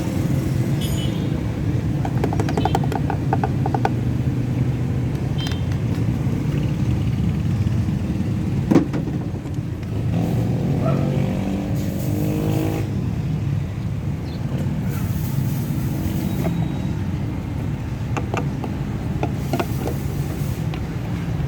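Toyota Hilux engine running steadily, the engine that has a knocking problem. A single sharp click stands out about nine seconds in, and a rising tone follows shortly after.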